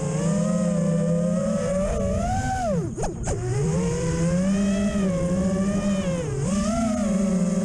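FPV racing quadcopter's brushless motors and propellers whining, heard from on board. The pitch rises and falls with the throttle. About three seconds in it falls sharply and climbs straight back as the throttle is cut and punched again, with a smaller dip near the end.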